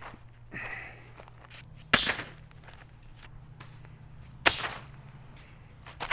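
Two sharp impacts about two and a half seconds apart, the loudest sounds here, with lighter knocks and rustling between them over a steady low hum.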